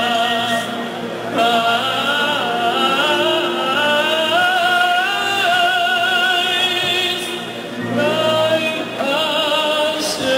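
A Hasidic men's choir singing together into microphones, the voices with vibrato, with brief dips between phrases a little over a second in and about eight seconds in.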